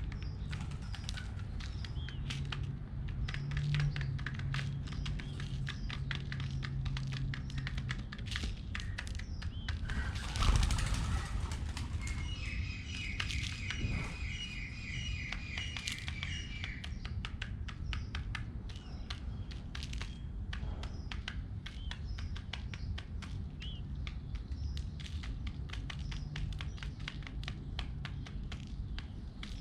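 Pigeons pecking at seeds, a steady patter of quick taps and clicks. About ten seconds in comes a loud burst of wing flapping, and soon after a bird gives a rapid chattering call for about four seconds.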